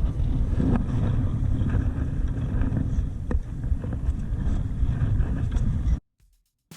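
Strong wind buffeting the microphone aboard a Laser sailing dinghy in heavy weather, with sharp knocks and slaps now and then. It cuts off suddenly about six seconds in, and a drum hit of music comes right at the end.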